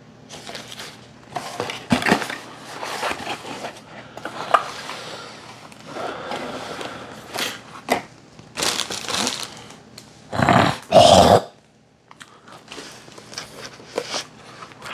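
Handling noise from a fabric zip case and cardboard multimeter boxes: irregular rustling, scraping and light knocks, with two louder scrapes about ten seconds in.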